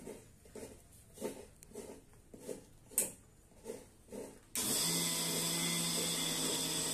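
A cat chewing and crunching pieces of coconut, a soft crunch about twice a second. About four and a half seconds in, a louder steady machine-like hum with a high whine starts abruptly and covers the chewing.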